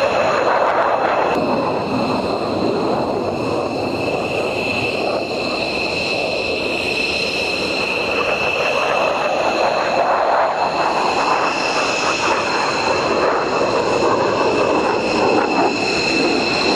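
Jet aircraft engine running steadily: a continuous roar with a steady high-pitched whine held over it.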